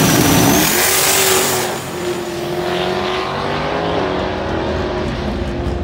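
A black SN95 Ford Mustang launching hard at a drag strip, the engine at full throttle. The start is loudest and harshest. The engine note then climbs steadily and fades as the car pulls away down the track.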